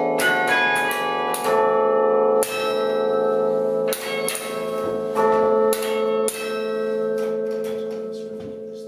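Bells struck one after another at uneven intervals, each note ringing on over the others. The last notes ring out and fade away near the end.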